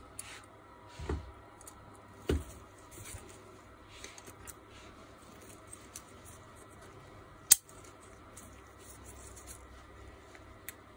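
Small metal parts and tools being handled at a workbench during an angle grinder repair: faint light clicks and rubbing, two dull knocks about a second apart near the start, and one sharp metallic click about seven and a half seconds in.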